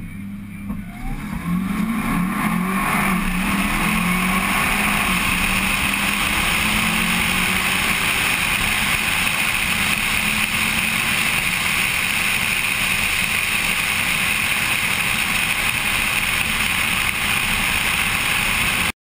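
2009 Cadillac CTS-V's supercharged 6.2-litre V8 launching and accelerating hard down a drag strip, its pitch rising over the first few seconds. This settles into a steady loud rush of wind and engine noise at speed on the car's outside-mounted camera, which cuts off suddenly near the end.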